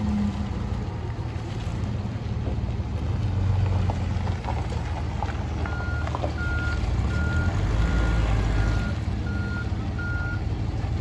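Propane-fuelled Toyota forklift engine running as it moves a hitched travel trailer, its reversing alarm beeping about seven times in an even series from a little past halfway until near the end.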